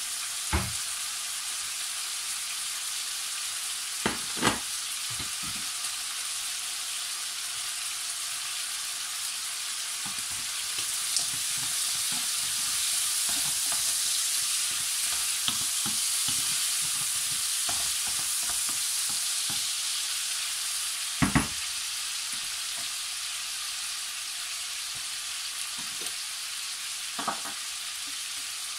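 Diced lamb sizzling as it browns in a nonstick frying pan, stirred with a wooden spoon: a steady frying hiss that swells through the middle stretch, with a few sharp knocks.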